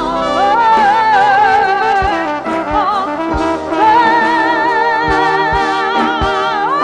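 Flugelhorn playing long held notes with vibrato over a live band, with drum beats underneath.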